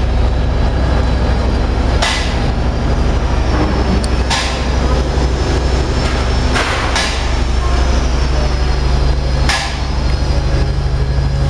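Wood-chip biomass power machine, a unit that turns wood chips into charcoal, running with a loud, steady low hum, with a sharp knock four times, every two to three seconds.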